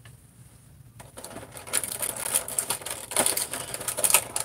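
Hard plastic action figure being handled, its joints and parts giving a quick, uneven run of small clicks and creaks as the limbs are moved. The clicking starts about a second in and is busiest near the end.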